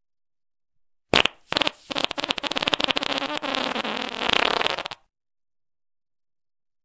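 Fart sound effect played as a novelty ringtone: a short blast about a second in, then a long rasping fart of about three seconds that cuts off sharply.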